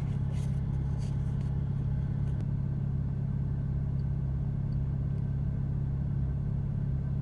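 Porsche Cayman 987.2's flat-six engine idling steadily, heard from inside the cabin, while the car's electronic oil-level measurement runs with the engine warmed up.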